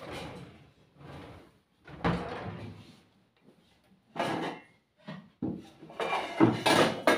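Someone rummaging in kitchen cupboards for a large cooking pot: cupboard doors and drawers opening and shutting, and pots knocking together. Separate bumps come in the first few seconds, then a quicker run of clatters with a short metallic ring near the end.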